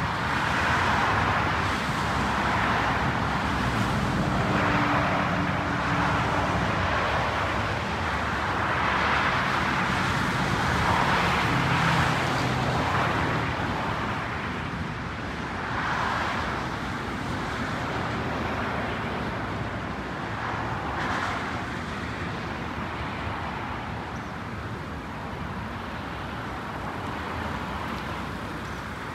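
Jet engine noise of an Airbus A319 passing overhead, a steady rush that slowly fades over the second half, mixed with road traffic that swells every few seconds.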